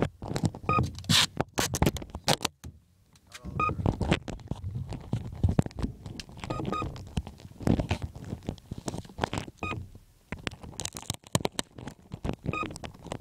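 Handling noise on an iPod's built-in microphone as it is held and fixed onto an RC model plane: irregular knocks, scrapes and rubbing, with low rumbling.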